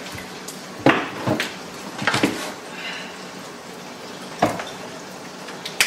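Kitchen clatter while cooking: a few sharp clicks and knocks of seasoning containers and utensils against pots and the counter, about four spread over several seconds, over a steady background hiss.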